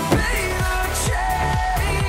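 Background pop music with a melody over a steady electronic drum beat.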